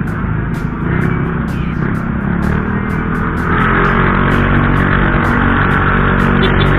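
Small motor scooter engine running and pulling away as the rider speeds up, with wind rushing over the helmet microphone that grows louder from about halfway through.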